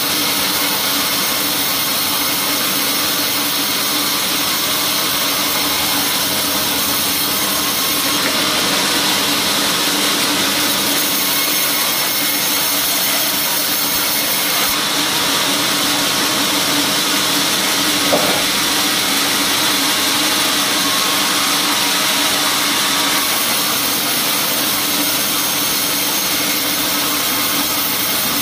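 Band sawmill running steadily while its blade rips a teak log lengthwise, a continuous sawing noise over a steady machine hum, with one brief knock about two-thirds of the way through.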